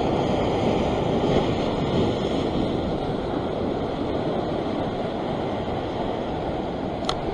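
Ocean surf washing and breaking over a sandstone rock ledge in a steady roar, with wind noise on the microphone. A brief click comes near the end.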